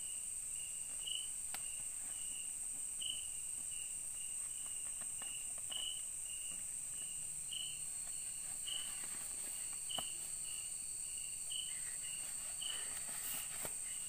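Night-time forest insects: a steady high-pitched drone with a high chirp repeated about twice a second, and a few faint clicks from handling.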